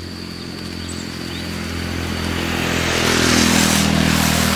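Motorcycle engine running, growing louder as it approaches and loudest about three and a half seconds in.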